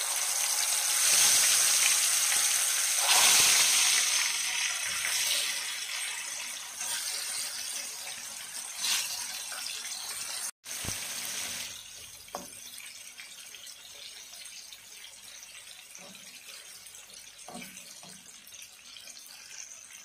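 Chicken drumsticks sizzling in hot oil in a frying pan as pieces are added. The sizzle is loudest in the first few seconds and settles to a quieter hiss after a brief gap about halfway, with a few light knocks.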